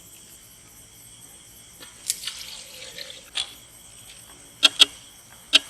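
Milk being poured and dripping into a pot, with a few sharp clinks near the end, over steady cricket chirring.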